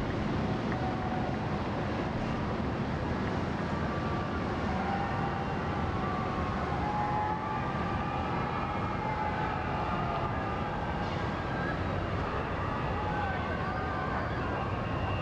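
Police sirens wailing faintly, their pitch slowly rising and falling, over a steady rushing noise; the sirens come in about four seconds in.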